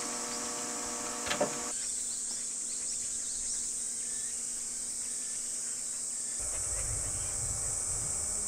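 A steady, high-pitched chorus of insects chirring outdoors. There is a short knock about a second and a half in, and a low rumble joins about two-thirds of the way through.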